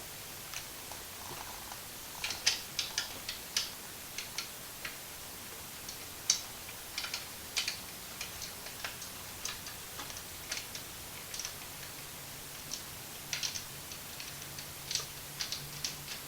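Scattered light clicks and taps, irregular and uneven in spacing: small headlight parts being handled and fitted back together by hand on a motorcycle headlight.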